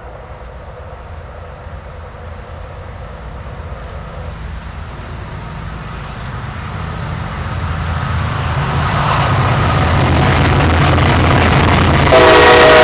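Approaching CSX diesel freight locomotives, a low engine rumble growing steadily louder as the train nears. Near the end the locomotive horn sounds suddenly, a loud chord of several steady tones, as the lead units pass.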